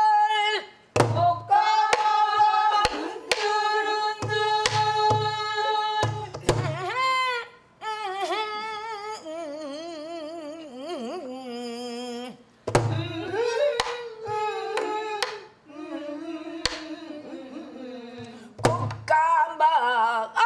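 A woman sings a Korean new folk song (sinminyo) in Namdo folk style, holding long notes with wide vibrato near the middle. She accompanies herself on a buk barrel drum: deep thumps and sharp stick clicks between and under the phrases.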